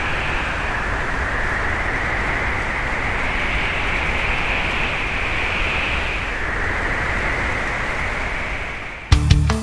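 Strong wind rushing over a helmet-mounted GoPro Hero3, a steady noise that swells and eases every few seconds. Near the end, rock music with electric guitar cuts in suddenly.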